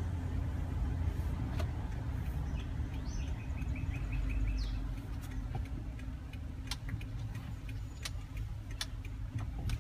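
Car running at low speed, a steady low engine and road rumble heard from inside the cabin, with a few small clicks.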